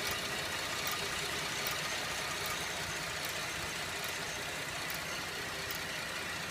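2011 Buick LaCrosse CXL engine idling with a slow, regular metallic tick, about one tick every 0.8 seconds, slower than the engine's own running rhythm.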